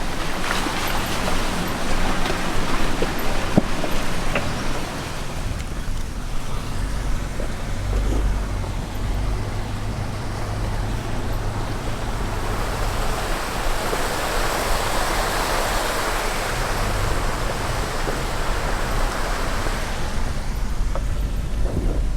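Toyota Tacoma pickup driving slowly up a rocky dirt trail: a steady low engine rumble with tyre and road noise, and a few sharp knocks in the first few seconds.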